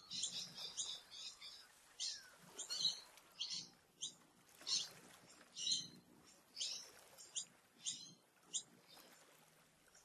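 Small birds calling: a string of short, high chirps about once or twice a second, which stop near the end.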